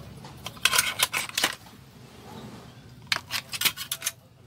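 Utensils clinking and clattering against pots and dishes as cooked food is served, in two quick runs of clinks, about a second in and again about three seconds in.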